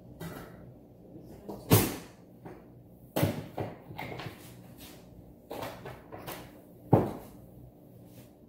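Kitchen clatter of cookware and utensils at the stovetop: about eight sharp knocks and clinks, two of them much louder, a little under two seconds in and about seven seconds in.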